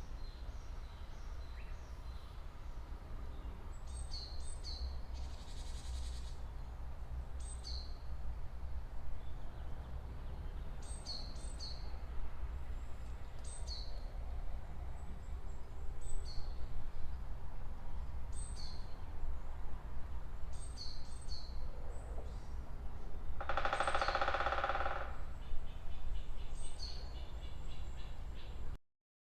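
Wild birds calling in a beech forest: short high chirps, each dropping in pitch, repeated every second or two, often in pairs, over a low steady rumble. Near the end a louder sound with several pitches lasts about a second and a half.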